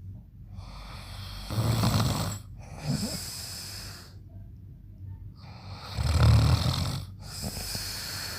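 A sleeping man snoring loudly: two snores about four and a half seconds apart, each followed by a hissing breath.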